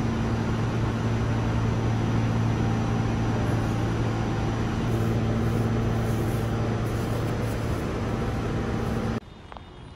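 A steady mechanical drone with a low hum, cutting off abruptly about nine seconds in.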